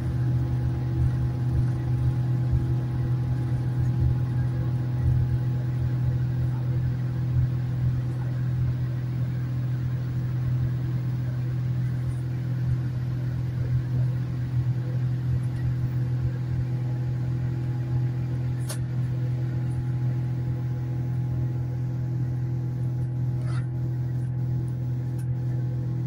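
Boeing 787 jet engines at takeoff power, heard inside the cabin during liftoff and the first climb: a steady, loud drone with a low hum, over an uneven rumble that settles after several seconds. A sharp click comes about two-thirds of the way through, and a few faint ticks follow near the end.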